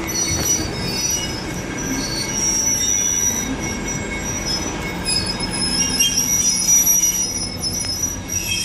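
Train rolling slowly along the track, its wheels squealing in several high, steady tones that come and go over a low rumble.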